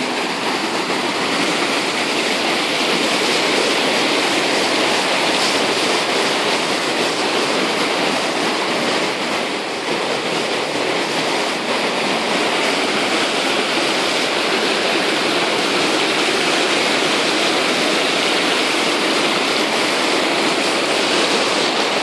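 A rocky river in spate, its white water rushing steadily over boulders and small falls, swollen after rain.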